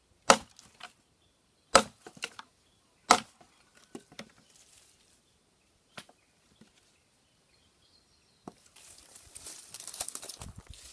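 Wood being chopped: three sharp chopping strikes about a second and a half apart, each followed by a few lighter knocks. Near the end comes a rustling hiss.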